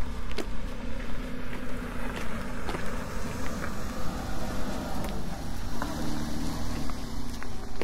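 A motor vehicle's engine running close by, a steady low rumble with a hum that shifts in pitch about six seconds in, and scattered footsteps clicking over it.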